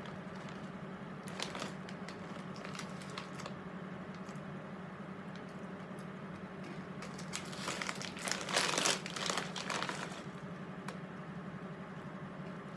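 Snyder's pretzel bag crinkling and rustling as a hand reaches into it and handles it: brief rustles early on, then a longer, louder crinkling about seven to ten seconds in. A steady low hum runs underneath.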